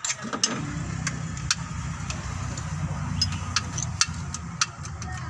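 Mitsubishi Canter 125's diesel engine running, stepping up in level right at the start with a sharp click and then running steadily, with scattered sharp ticks over it. The engine is being set up at its injection pump because it would not hold an idle and kept stalling.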